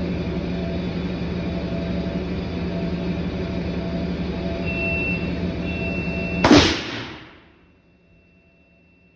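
A steady machine noise runs, then a 1963 Brown Boveri DBC airblast circuit breaker operates once with a sudden loud blast of compressed air. The hiss dies away within about a second, and the machine noise stops with it, leaving only a faint hum.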